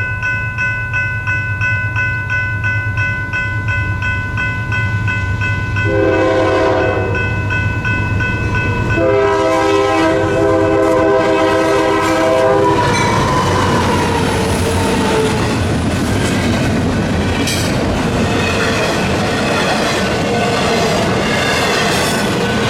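Train horn sounding two blasts, a short one about six seconds in and a longer one from about nine to thirteen seconds, over a steady high ringing tone. The train then passes with a steady rumble and wheel noise on the rails.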